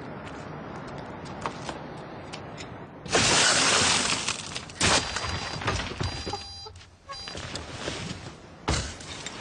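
Car side window smashed about three seconds in: a loud burst of shattering glass lasting about a second, followed by scattered knocks and clatters, with another sharp hit near the end.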